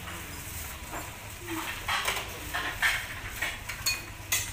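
Dishes and cutlery clinking: a string of separate sharp clinks of spoons against plates and metal cooking pots, starting about a second and a half in.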